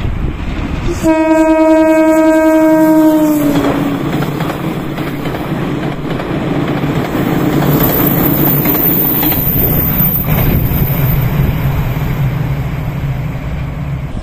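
A Japanese train sounds one steady horn blast of about two and a half seconds, sagging in pitch as it cuts off. The train then runs past with continuous wheel-on-rail rumble and clatter, and a thin high whine for a few seconds midway.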